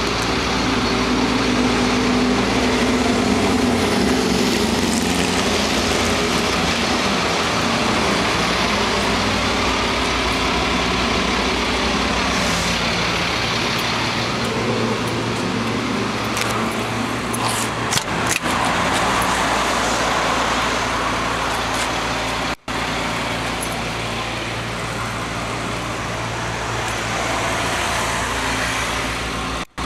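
Restored 1971 Chevrolet C-10 pickup's 450-horsepower engine idling steadily, with a few sharp clicks a little past halfway.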